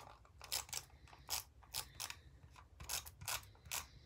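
Handheld tape-runner adhesive dispenser clicking and ratcheting as it is stroked across the back of a small cardstock piece, a quick, irregular string of sharp clicks, about three or four a second.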